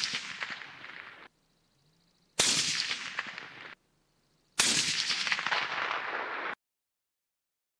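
Suppressed rifle shots from a short-barrel .308 Christensen Arms MPR: the tail of one report, then two more about two seconds apart. Each sharp crack trails off for a second or more before cutting off short.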